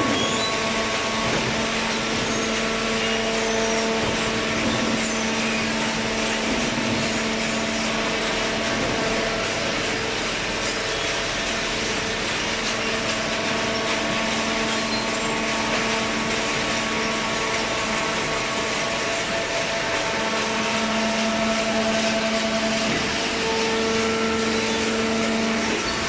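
Horizontal hydraulic waste paper baler plant running: a steady machine drone with several held tones over a loud, even noise.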